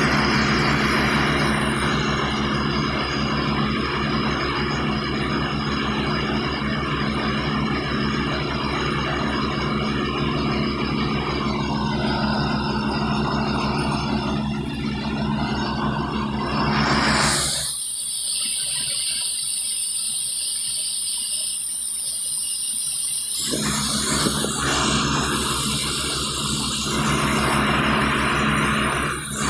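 A diesel engine runs steadily with a regular firing beat as a portable air compressor works, under a loud hiss of air and water rushing from a borewell hose. For about six seconds past the middle, the engine and lower sound drop away and only the high hiss remains.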